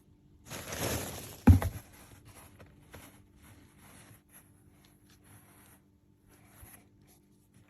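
Packaging being handled during an unboxing: a rustling, tearing noise about half a second in, a sharp thump a moment later, then faint scattered rustles and taps.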